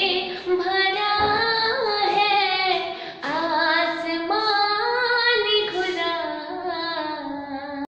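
A woman singing a Hindi Christian worship song, drawing out long wavering notes with no clear words.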